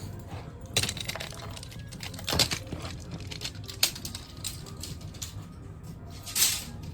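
Irregular clicks and clattering knocks, a few of them sharper and louder, over a steady low hum.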